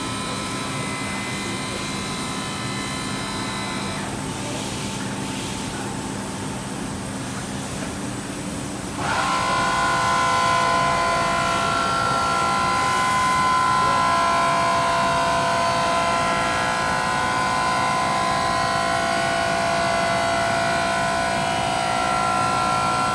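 WFL M60 CNC turning-milling center running under power: a steady hum with several high whining tones. Some of the higher tones drop out about four seconds in. About nine seconds in, a drive spins up with a quick rising whine and the machine gets louder, holding a steady whine after.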